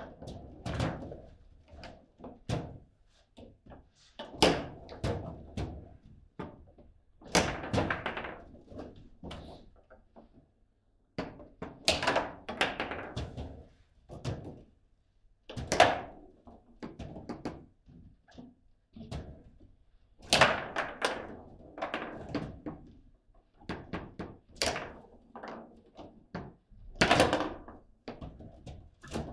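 Table-football (foosball) table in play: an irregular run of hard knocks and clacks as the plastic figures strike the ball and the ball hits the table's walls. Sharper, louder shots come every few seconds.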